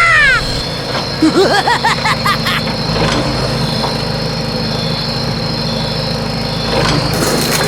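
Steady engine-like drone, with two quick runs of chirping, arching glides in the first few seconds.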